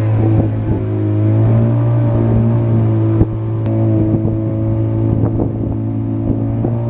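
A motor engine running at a steady, even drone, with scattered small knocks and rattles over it.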